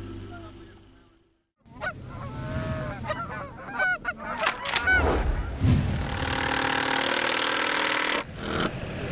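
Geese honking, several overlapping calls for about three seconds. After the honking a cordless drill runs steadily for about two and a half seconds and stops abruptly near the end, followed by a short burst.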